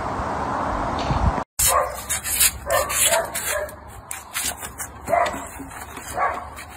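A steady hiss that cuts off after about a second and a half, then a dog making short, repeated calls a few times, among sharp clicks and taps.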